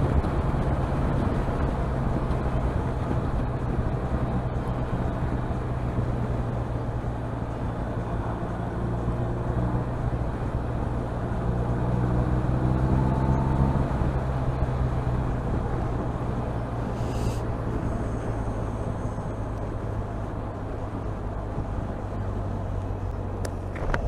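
Twin-cylinder motorcycle engine running at road speed under wind and road noise. The engine note climbs a couple of times in the middle as the bike accelerates.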